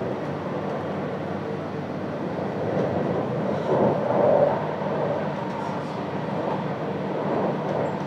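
RER A commuter train running at speed, heard from inside the carriage: a steady rumble and rushing noise that swells briefly about four seconds in.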